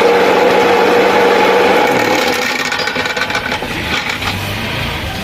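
Mixer grinder running with its jar fitted, making a loud, harsh rattling noise over the motor hum; about two seconds in the motor hum falls in pitch as it spins down. The noise comes from play in the jar's blade shaft, which the electrician puts down to a broken or worn-out bush.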